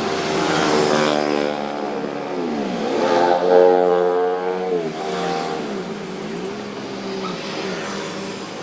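Heavy diesel machine engine running hard, its pitch dipping and climbing back twice: once about two and a half to three and a half seconds in, when it is loudest, and again around five to six seconds in.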